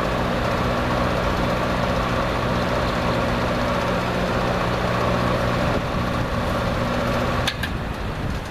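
Vintage Lasko 6745 box fan running on low, its only working speed, with a steady motor hum and blade whoosh. Near the end its switch clicks and the hum stops.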